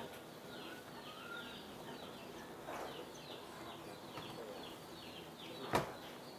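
Newly hatched chicks peeping, a steady string of short falling chirps a few times a second. A single sharp click near the end.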